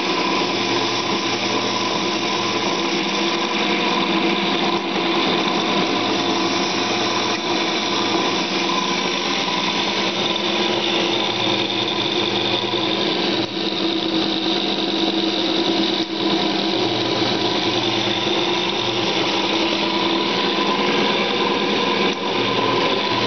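Machine tool running steadily while cutting a cast iron flywheel: a constant mechanical hum with several held tones.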